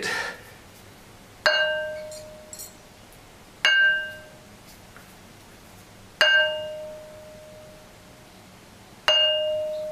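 A large club-shaped stone struck four times, each strike ringing like a bell with a clear tone that fades over a second or two; the last rings longest.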